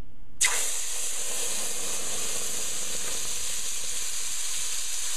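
Wet curry paste of garam masala, turmeric and curry powder hitting hot oil in a pot about half a second in, starting suddenly and then sizzling with a steady hiss.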